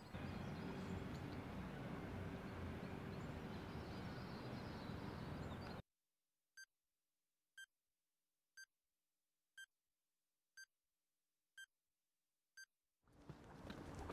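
Seven short high electronic beeps, one a second, over dead silence: a countdown timer ticking down. Before them comes about six seconds of steady outdoor background noise, which cuts off abruptly.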